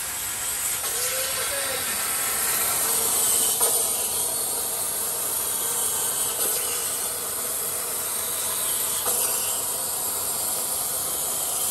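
Plasma torch on a CNC plasma table cutting through steel sheet: the arc and its air jet hiss steadily as the torch travels along a straight cut.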